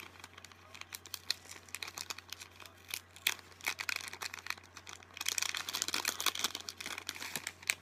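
Crinkling and rustling with many small irregular clicks as a beaded bookmark is handled, busiest about five seconds in.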